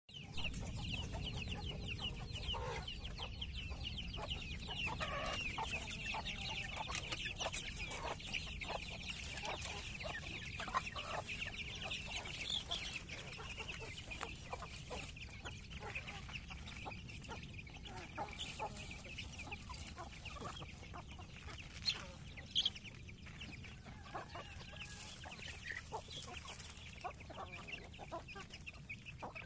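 A flock of free-range village chickens (ayam kampung) clucking while feeding, with a dense high peeping of chicks throughout, busiest in the first half. Two sharp knocks come about 22 seconds in.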